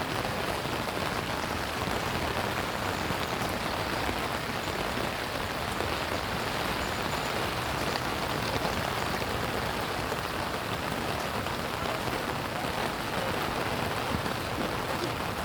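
Steady rain falling, an even patter of drops on hard surfaces with no let-up.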